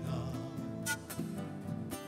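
Live Andean folk instrumental: acoustic guitars with pan pipes over a bombo legüero, its fur-covered head struck with a wooden stick and a mallet, two sharp drum strokes about a second apart.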